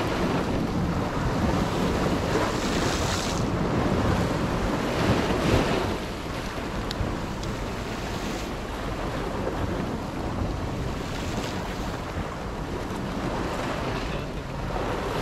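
Sea waves breaking and washing over shoreline rocks, with wind buffeting the microphone. The surf is louder for the first half, then eases slightly.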